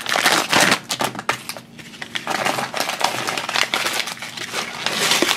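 Foil blind bag crinkling as it is handled and opened, then white paper wrapping rustling and tearing as it is pulled off a small plastic dome figure; an irregular run of crackles throughout.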